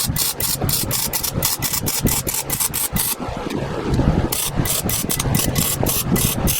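Welding arc crackling in a rapid train of short bursts, about six a second, as welds go into rusty truck-bed support rails, with a brief break about three seconds in. A steady low hum runs underneath.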